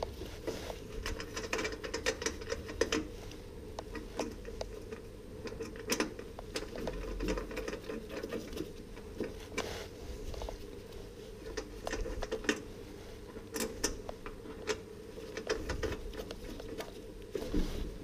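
Irregular light clicks and taps of hands handling wiring and connectors while a diesel heater's power supply is reconnected, over a faint steady hum.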